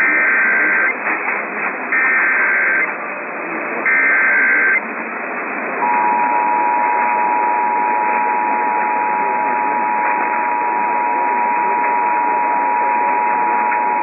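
Emergency Alert System Required Monthly Test received over AM radio: three short bursts of SAME digital header data, a harsh warbling screech about a second long each, a second apart. About six seconds in, the steady two-tone EAS attention signal starts and holds for about eight seconds, all over a hiss of AM static.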